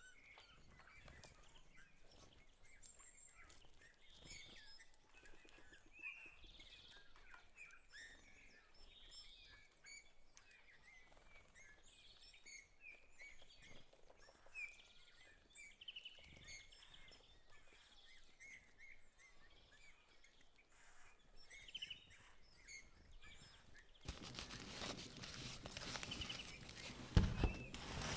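Faint birds chirping now and then. A few seconds before the end a louder rustling noise starts, with a single thump near the end.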